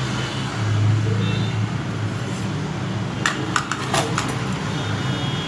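Steady low background hum, with a quick cluster of light, sharp clicks and clinks about three to four seconds in.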